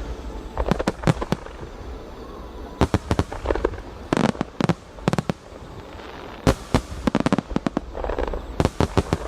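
Aerial fireworks exploding in rapid volleys of sharp bangs and cracks, in five or so clusters about a second apart, over a steady low rumble.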